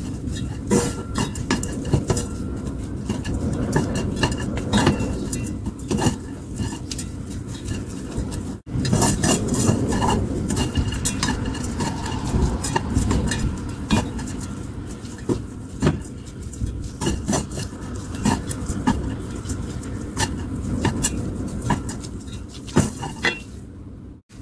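Wooden chopsticks and a wooden spoon tossing and stirring sauce-coated shredded dried squid in a pan: repeated taps and scrapes of wood against the pan with a rustle of the shreds. The sound cuts out briefly about a third of the way in.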